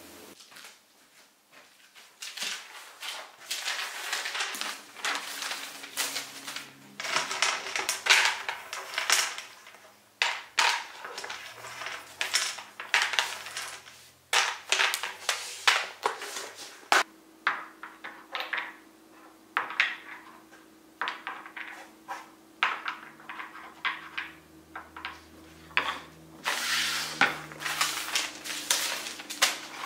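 Toys and crayons being cleared off a table: wax crayons clicking into a plastic crayon case, wooden stacking-toy pieces knocking together, and paper rustling, in an uneven run of small clicks and knocks.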